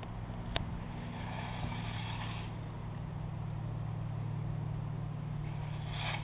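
A ferry's engines running with a steady low drone, with a single sharp click about half a second in.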